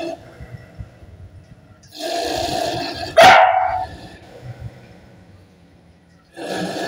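A dog barking in three bursts about a second long each: at the start, two to three seconds in, and near the end. About three seconds in comes a sharp cry falling steeply in pitch, the loudest sound.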